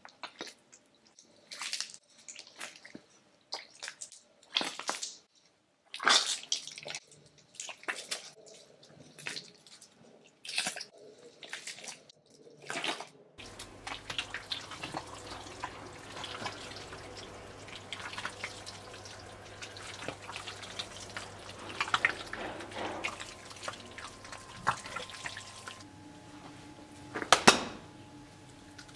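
Water dripping, single drops falling at irregular intervals with quiet between them. After about thirteen seconds a steady bed of fine crackling and trickling sets in over a low hum, with one louder splash near the end.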